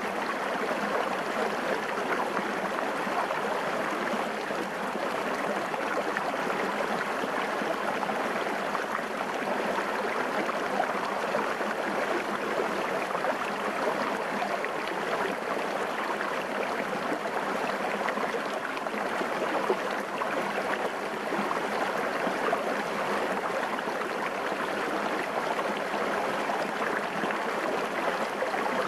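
Small, shallow, clear stream running over rocks, a steady rush of water heard close to the surface.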